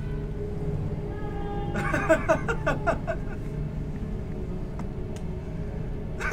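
A steady low hum, with a short run of rapid, choppy vocal sounds from one person about two seconds in, lasting roughly a second.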